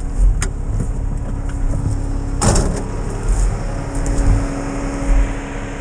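Off-road 4x4's engine running at low revs as the vehicle crawls through brush, with a steady low rumble. A single brief, sharp noise comes about two and a half seconds in.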